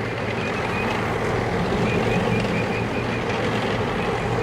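Heavy vehicle engine running steadily, with a faint high squeal repeating about three times a second.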